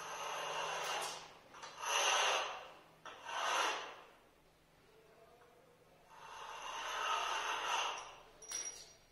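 Long strips slid and rubbed by hand across a polished granite slab, making four scraping passes, the last one longer, then a short knock near the end.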